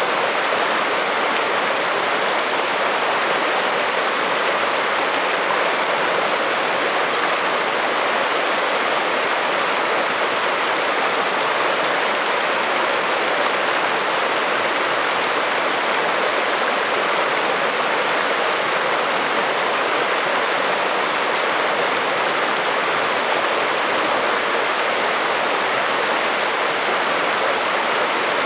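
Chalk Creek, a shallow rocky mountain creek, flowing steadily over cobbles and small rocks: an even rush of water with no breaks or changes.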